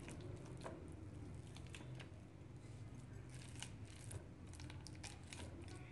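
Metal fork mashing soft cooked potato-and-cauliflower filling against an enamel plate: faint, irregular scrapes and light clicks of the tines on the plate.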